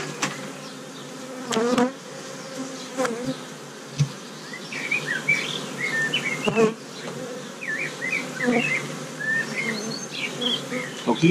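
Honeybee colony buzzing over an open hive as a bee-covered brood frame is lifted out, with a few short knocks and scrapes of the frame being handled.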